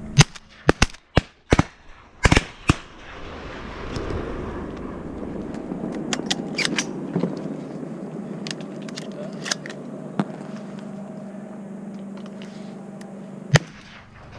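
Duck hunters' shotguns firing. A fast, loud volley of about eight shots comes in the first three seconds, then fainter shots are scattered over the next several seconds, and one more loud shot comes near the end.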